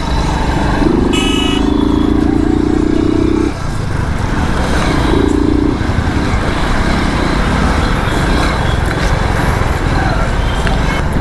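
Hero Splendor's single-cylinder engine running under way with wind and road noise in heavy traffic; the rider says the bike has lost its pickup and will not pull. A vehicle horn sounds for about three seconds near the start, and again briefly about five seconds in.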